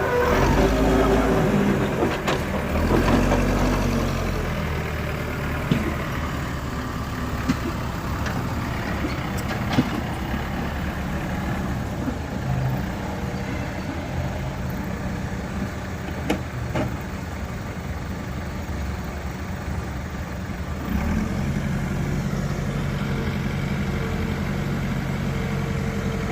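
Backhoe loader's diesel engine running steadily, with a few sharp metallic clanks. The engine grows louder about three quarters of the way through.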